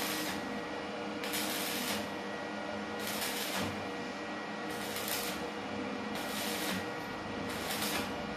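Stick (electrode) arc welding on steel: the arc sizzles and crackles steadily, throwing spatter, with louder hissing surges about every second or so.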